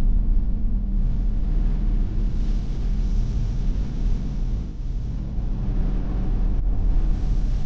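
Car cruising at highway speed, heard from inside the cabin: a steady low rumble of road and engine noise with a light hiss of wind.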